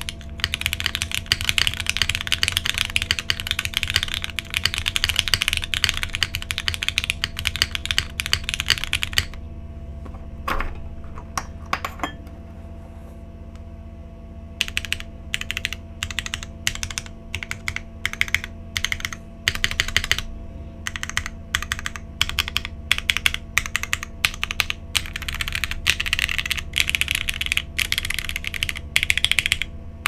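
Custom TKL mechanical keyboard with Cherry MX Hyperglide Black linear switches, an aluminium plate, o-ring mount, copper bottom and GMK keycaps. It is typed on quickly for about nine seconds, then single keys are pressed one at a time with pauses between them, and fast typing picks up again near the end. A steady low hum runs underneath.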